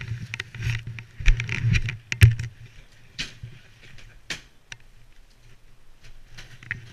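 Passenger bobsled setting off down the ice track: a cluster of knocks and bumps in the first two seconds or so, then the runners sliding on the ice under a steady low rumble with light scattered clicks.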